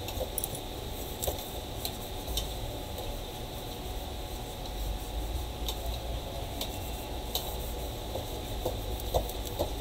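Scattered light clicks and taps from a smartphone being handled and wiped with a tissue, over a steady low hum. The sharpest clicks come near the end.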